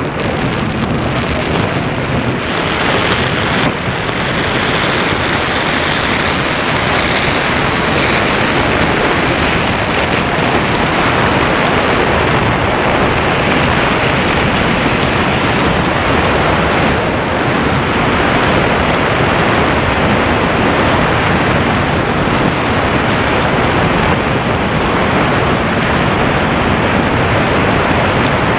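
Bobsleigh runners hissing and scraping over the ice at high speed, with rushing wind on the sled-mounted microphone: a loud, steady rush of noise. A faint high whine rises in pitch a few seconds in, and again about halfway through.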